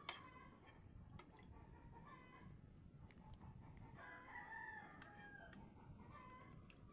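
A sharp metal clink at the very start, a spoon against the aluminium pot, then a rooster crowing faintly in the background about four seconds in, one call lasting under two seconds.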